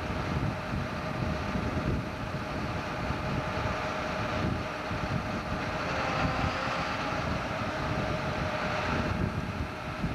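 John Deere 9600 combine's diesel engine running as the machine moves slowly, a steady mechanical drone with a constant whine over it. Wind buffets the microphone.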